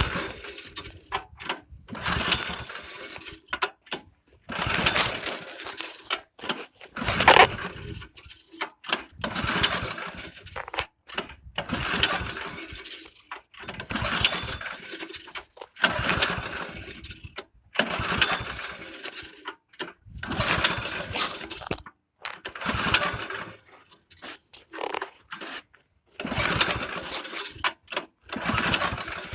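Snowblower engine being cranked over and over, in short bursts a second or so long, without starting: it will not restart while warm.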